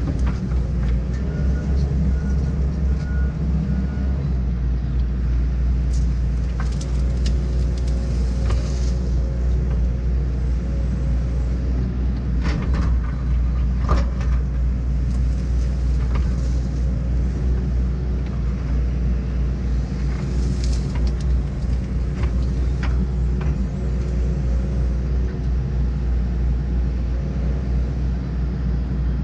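John Deere 135G excavator's diesel engine running steadily under work, with scattered short knocks and snaps over it, the sharpest about fourteen seconds in.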